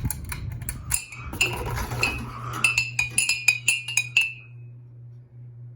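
Light clinking, about a dozen quick strikes with a short ringing tone, ending a little over four seconds in, over the steady low hum of running ceiling fans.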